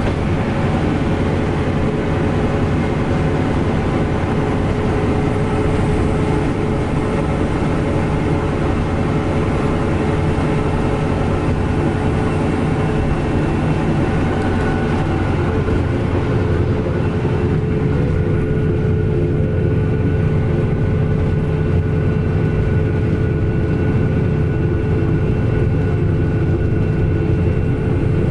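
Steady cabin noise inside a moving Mitsubishi-engined medium coach bus: a constant drone of engine and road noise with a few unchanging hum tones, the hiss in it easing a little past the middle.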